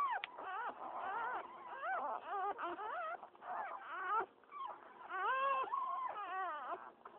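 Newborn Pitbull puppies whimpering and squealing, several at once, in a constant stream of short high cries that rise and fall.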